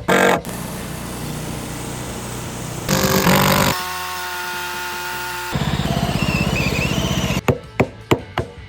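Portable bandsaw sawmill running under engine power as its blade cuts, with a louder stretch about three seconds in and a run of sharp knocks near the end.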